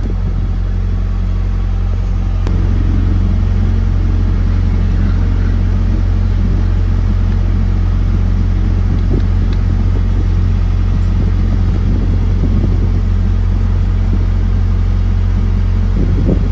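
An engine idling steadily: a low, even hum. About two and a half seconds in it grows a little fuller.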